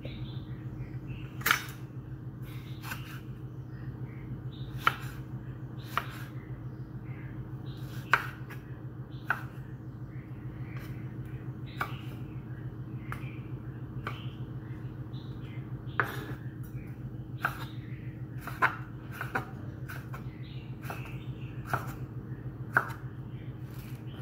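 Kitchen knife chopping a tomato on a wooden cutting board: sharp knocks of the blade hitting the board, irregular, roughly one every second or two. A steady low hum runs underneath.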